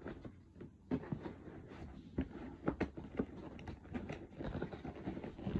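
Faint, irregular clicks, taps and rustles of objects being handled close to the microphone.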